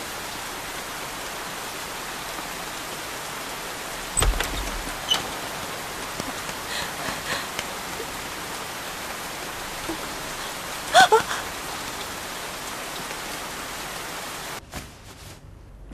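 Heavy rain falling steadily, with a low thud about four seconds in and a brief sharp clatter around eleven seconds. The rain cuts off suddenly about a second before the end.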